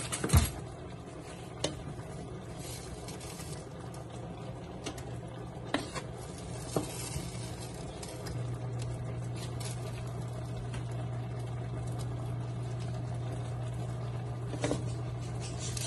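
Orange bell pepper pieces sizzling faintly in a nonstick frying pan as they are stirred and turned with a spatula, with a few sharp knocks of the utensil on the pan, the loudest about half a second in. A low steady hum grows louder about eight seconds in.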